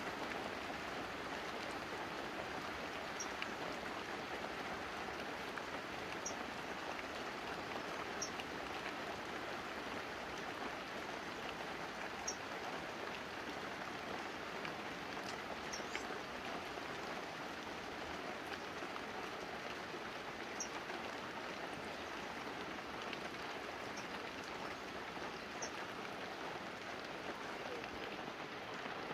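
Light, steady rain falling on banana leaves and a roof, an even patter with scattered sharp drops every couple of seconds.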